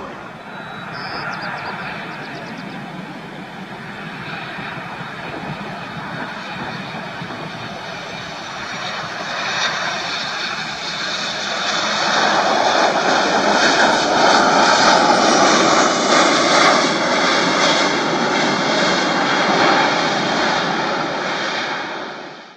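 Jet engines of a Boeing 737-800 airliner on final approach and landing, with its CFM56 turbofans running at approach power. The sound grows louder as the plane comes in and is loudest for several seconds after touchdown, about halfway through.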